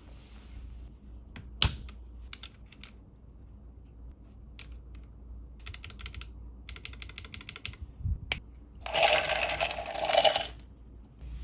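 Typing on a Melgeek MADE68 keyboard fitted with Gateron Magnetic Jade switches: a few scattered keystrokes, then two quick runs of rapid keypresses, then a louder dense flurry of keys for about a second and a half near the end.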